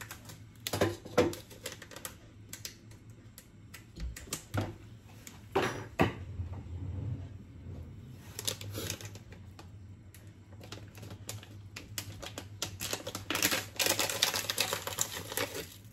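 Dried rosemary being shaken out of its container onto a raw steak: scattered clicks and taps, with a dense run of rapid rattling ticks near the end.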